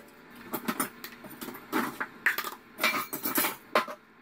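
A stainless steel saucepan and plastic bowls clattering as they are handled and set down: a string of separate knocks and clinks, some ringing briefly.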